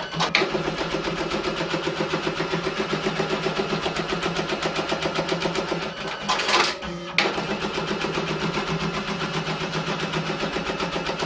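Brother industrial pattern sewing machine stitching at high speed, a fast even clatter of needle strokes at about eight a second. About two-thirds of the way through, the stitching breaks off for about a second with a short hiss, then picks up again.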